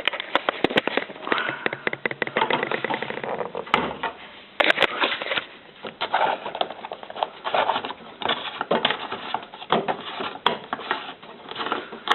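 Plastic clicking, scraping and knocking as the fluff (drain pump) filter of a Zanussi FLA1002W washing machine is unscrewed by hand and pulled out, with a few sharper knocks along the way.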